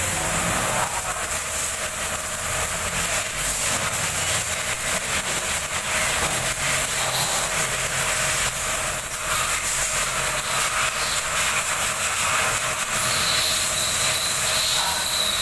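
Stick (shielded metal arc) welding: the arc crackles and hisses steadily as the electrode burns, with a faint steady hum underneath.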